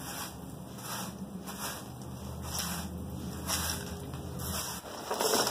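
Push broom's stiff bristles scraping and swishing across a concrete patio in repeated strokes, roughly one a second.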